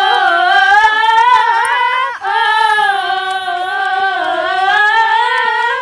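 A woman's voice singing two long, wordless held phrases of a melody, with a short break about two seconds in.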